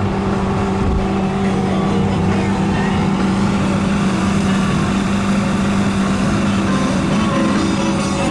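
Mercury 850 85 hp outboard motor running steadily while the boat cruises, a continuous hum with one strong low tone that holds throughout.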